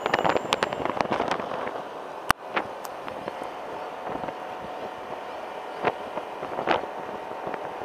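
Wind buffeting and crackling on the microphone of a camera riding on a moving scooter, over a faint steady engine hum. About two seconds in there is one sharp click where the sound briefly drops out.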